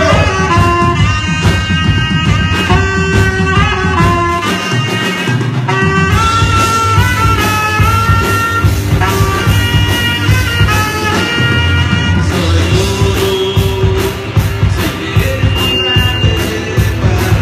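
A live rock band playing loudly: electric guitars, saxophone and a drum kit, with a melodic lead line of held notes over a steady beat.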